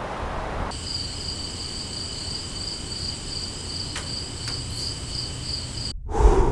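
Crickets chirring in a steady, fast-pulsing trill over a low background hiss. The sound cuts in a little under a second in and breaks off suddenly near the end.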